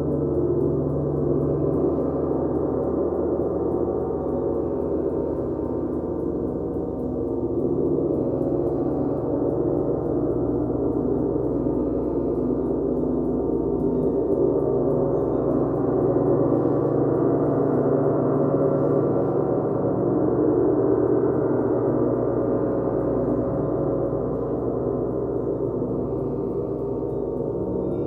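Large gongs played continuously in a sound bath: a dense, sustained wash of many overlapping ringing tones that slowly swells and eases, with no single strike standing out.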